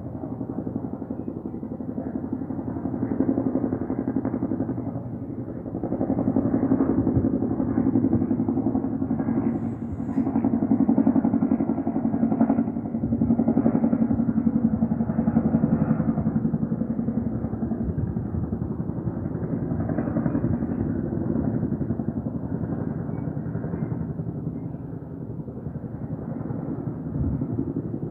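Helicopter flying low overhead: a continuous rapid rotor chop with engine drone, getting louder over the first few seconds and slowly fading in the second half.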